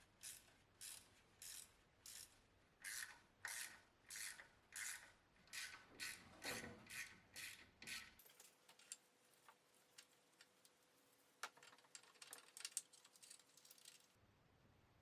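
Rhythmic hand scraping or rubbing strokes, about two a second, then after about eight seconds a looser run of light clicks and scrapes.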